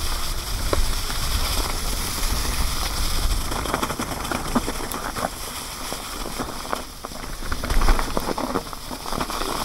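E-mountain bike tyres rolling over dry fallen leaves: a continuous crackling with sharp clicks and rattles from the bike over rough ground, and the loudest jolt about eight seconds in. Underneath runs a low rumble of wind on the microphone.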